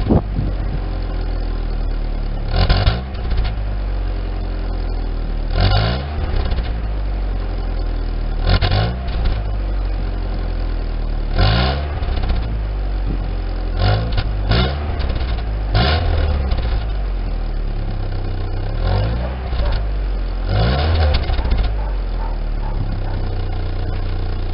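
1999 Daewoo Nubira 2.0 L DOHC four-cylinder engine idling and being blipped on the throttle about every three seconds, rising briefly and falling back to idle each time. The engine has a misfire that the owner puts down to an internal engine problem.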